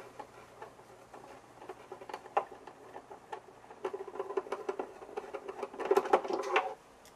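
Torx screwdriver turning a screw out of an oscilloscope's plastic rear case: small scratchy clicks and ticks of the bit working in the screw head, busier from about four seconds in.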